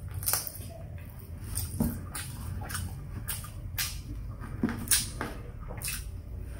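Close-up mouth sounds of eating fried chicken with the hands: irregular wet clicks and smacks of the lips and tongue while gnawing a chicken bone and chewing a mouthful of rice.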